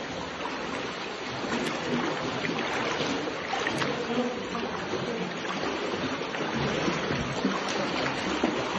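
Water flowing in a cave river: a steady rushing and gurgling.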